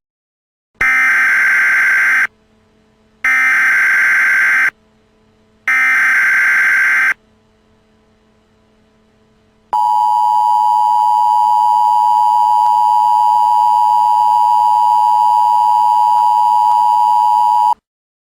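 Emergency Alert System signal: three short bursts of data tones (the SAME header), each about a second and a half long, followed by the steady two-pitch attention tone, held for about eight seconds before it cuts off.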